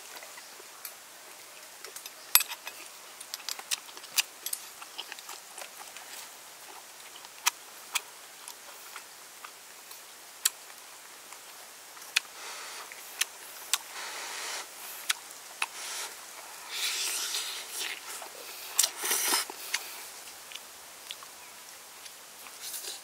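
A man eating noodles with bamboo chopsticks and a metal spoon: scattered sharp clicks of the utensils against the bowl and pot, and in the second half several longer noisy stretches of slurping and chewing.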